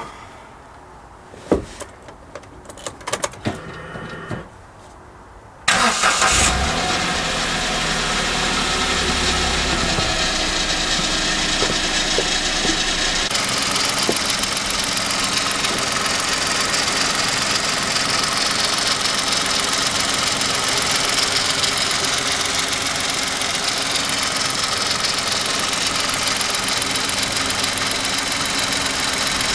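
A few clicks and knocks, then about six seconds in a car engine starts abruptly and keeps running steadily.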